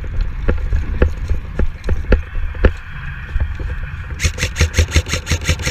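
Running footsteps on snow and ice, about two heavy thuds a second. About four seconds in, an airsoft rifle opens up on full-auto, a fast, even string of cracks about ten a second.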